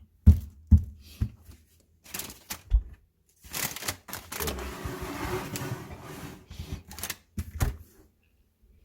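Rummaging through stored food containers: hard knocks and clatter of containers and lids, with a few seconds of rustling in the middle and two more knocks near the end.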